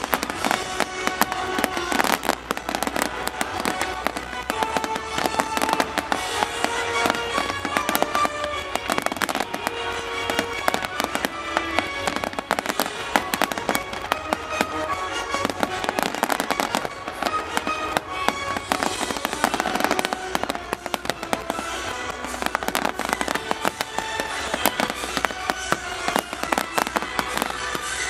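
Dense fireworks barrage: rapid crackling and bangs from many shells at once, with music playing underneath.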